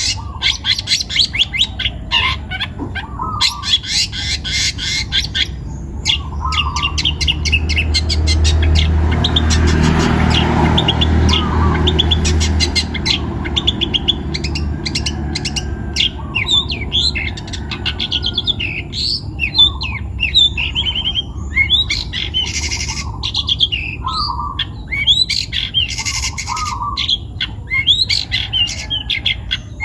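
Young long-tailed shrike (cendet) singing continuously, with fast rattling chatter runs broken by short harsh squawks and slurred call notes. A low rumble swells and fades about a third of the way in.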